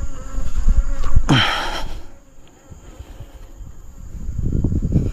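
A flying insect buzzing near the microphone as a faint wavering drone, over low rumbling handling noise. About a second in there is a short, loud rushing sound.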